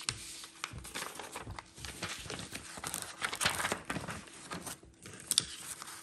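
Sheet of printed vellum paper rustling and crinkling as it is handled and laid down onto cardstock, with many small sharp crackles and one sharper snap near the end.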